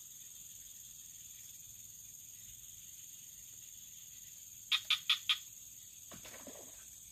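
A frog in the swamp gives four quick, loud croaks about five seconds in, over a steady high insect drone.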